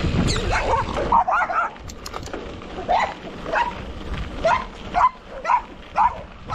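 Dogs barking repeatedly, about two barks a second, as guard dogs warning off a passer-by from their houses. For about the first second a low wind rumble on the microphone runs under them, then drops away.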